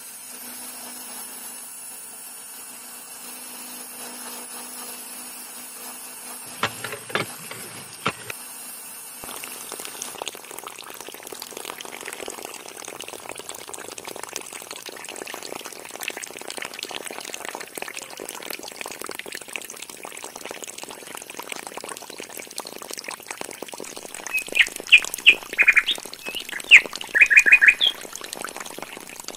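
Water pouring from the outlet pipe of a miniature motor-driven water pump and splashing into a small pool, a steady trickling splash from about nine seconds in, after a faint low hum and a few clicks. Near the end a bird chirps loudly several times.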